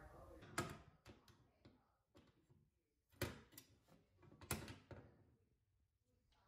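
Faint metallic clicks and taps from a Mounting Dream tilting TV mount's steel bracket arm being handled on its wall plate: one sharp click about half a second in, a few small ticks after, then a pair of knocks around three seconds in and another pair around four and a half seconds in.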